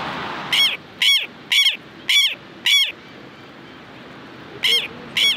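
Southern lapwing calling: five loud calls about half a second apart, then a pause, then more calls near the end.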